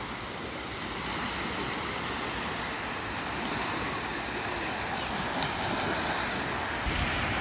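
Lake Michigan waves washing onto the beach, with wind blowing on the microphone: a steady, even rush of noise.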